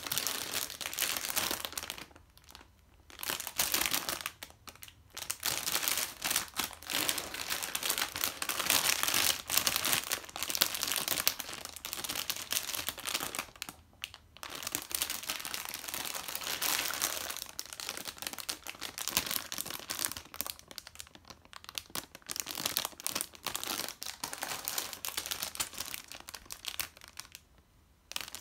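Clear plastic bags around Gunpla kit runners crinkling as they are lifted and handled, in bouts of dense crackling broken by a few short pauses.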